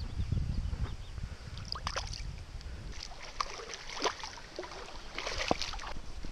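A hooked zander splashing and thrashing at the surface as it is brought to the bank and taken by hand, with irregular splashes and a bigger splash about five seconds in. A low wind rumble on the microphone fills the first couple of seconds.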